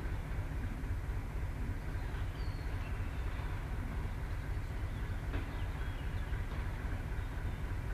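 Class 73 electro-diesel locomotive's diesel engine idling with a steady low hum, with a few faint clicks about five seconds in and near the end as the brake van rolls on the next track.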